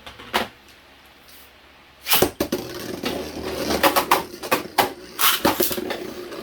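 Two Beyblade spinning tops launched together about two seconds in, then spinning in a plastic stadium with a steady whir and many sharp clacks as they hit each other.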